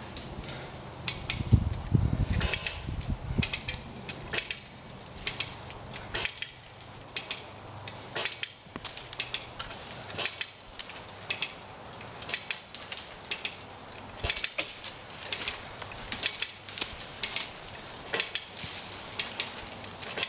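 Come-along hand winch being cranked under load: the ratchet pawl clicks in short bursts with each stroke of the handle, about once a second, as the cable is drawn tight to pull a tree over. A brief low rumble comes about two seconds in.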